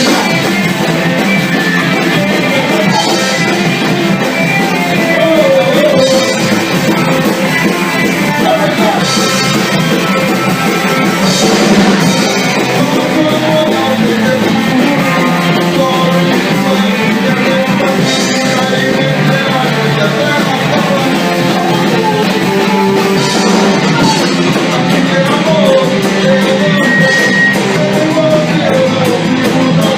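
Loud rock music with electric guitar, drum kit and singing.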